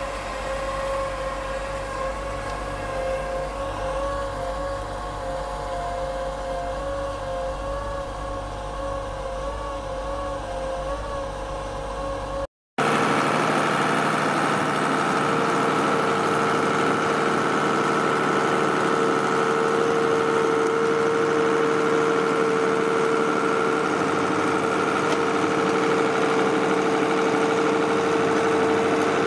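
Heavy trenching machines running steadily under load. First a trencher's engine drones with slightly wavering tones. After a sudden cut about twelve seconds in, a tractor powering a trenching wheel through soil gives a louder, steady drone with a high whine.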